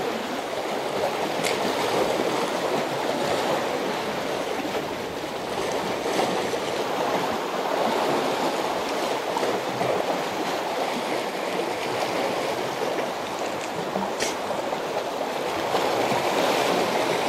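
Sea water washing and sloshing steadily among the concrete breakwater blocks, an uneven rushing wash with two faint clicks, one near the start and one near the end.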